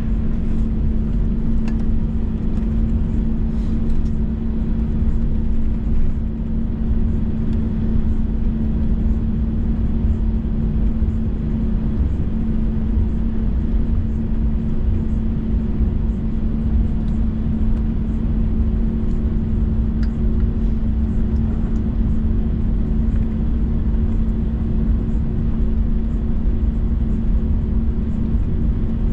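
Jet engine and airflow noise inside an Airbus A321 passenger cabin: a steady low rumble with a constant hum.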